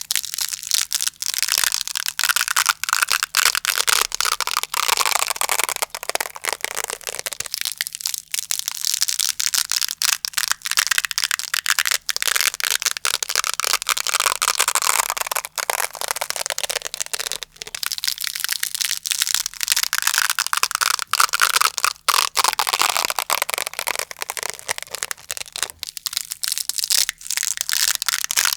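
Velcro hook-and-loop fastener being pulled apart close to the microphone: a continuous crackling rip, broken by a few short pauses.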